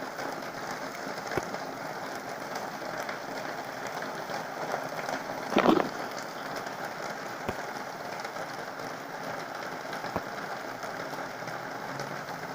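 Heavy rain falling steadily, with scattered sharp drips and one louder, brief splashing noise about halfway through.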